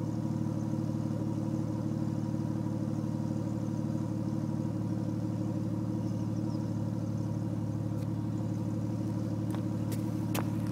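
Porsche 997 Turbo's twin-turbo flat-six with a Cargraphic aftermarket exhaust, idling steadily with a deep, even note. A few sharp clicks come near the end as the camera is handled.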